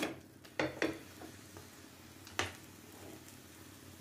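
A methi paratha is flipped on a non-stick tawa with a slotted spatula: three short knocks of the spatula against the pan, over a faint sizzle of the paratha frying in oil.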